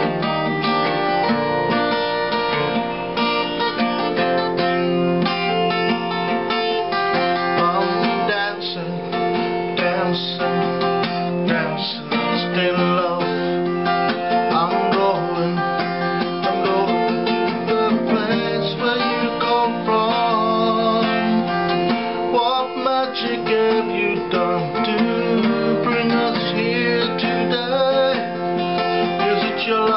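Acoustic guitar being strummed and picked in a steady, continuous song accompaniment.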